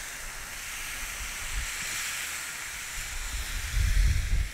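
Fried rice and freshly poured soy sauce sizzling steadily on a hot stainless steel griddle pan over a charcoal kettle grill. A low rumble rises near the end.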